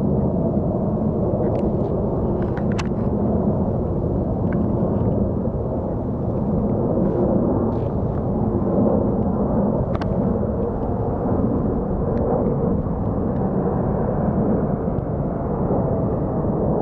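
Steady low rumble of a jet airliner flying overhead, with a few faint clicks.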